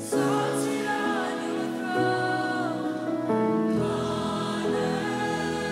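Live worship band music: a woman sings a slow, held melody with backing voices over electric guitar and band.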